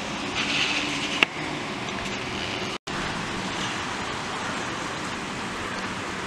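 Steady hiss of rain falling, with a single sharp click a little over a second in. The sound cuts out completely for an instant just before halfway.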